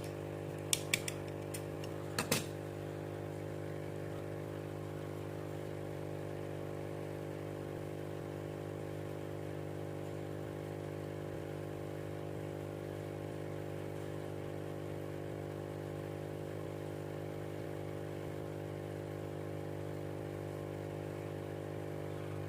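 Small electric motor of a homemade mini aquarium powerhead pump running with a steady hum, with a few sharp clicks in the first couple of seconds.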